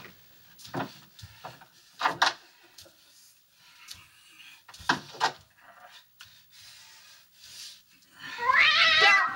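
A cat meowing: one long, wavering meow near the end, after a few soft knocks and shuffles.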